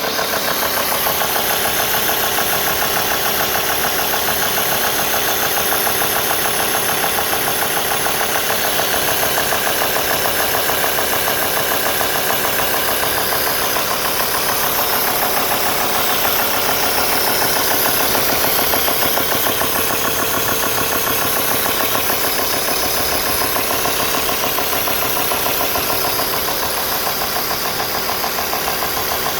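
Alfa Romeo 2.4 JTDm five-cylinder turbodiesel running steadily at normal operating temperature (90 °C coolant), making a strange noise that the owner is trying to identify.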